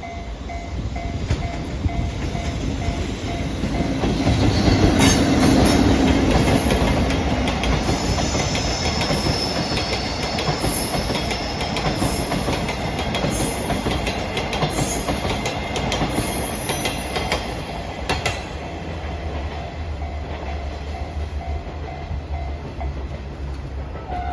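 A JNR EF65 electric locomotive passes a level crossing, loudest about five seconds in, hauling unpowered new subway cars whose wheels clatter rhythmically over rail joints, with some high wheel squeal. The clatter eases off after about eighteen seconds. Through it, the crossing warning bell rings in steady repeated dings.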